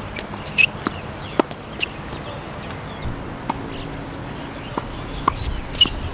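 Scattered sharp knocks of a tennis ball, struck by rackets and bouncing on a hard court: four in the first two seconds and two more near the end.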